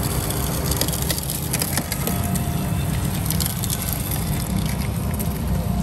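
Battery-powered electric sugarcane juicer running and crushing a stalk of sugarcane between its rollers: a steady low hum from the machine with scattered crackling and splintering as the cane is pressed.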